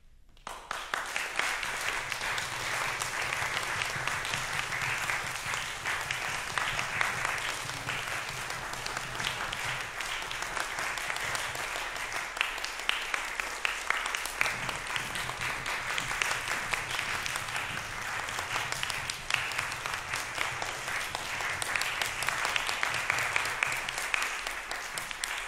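Audience applause breaking out about half a second in and continuing steadily.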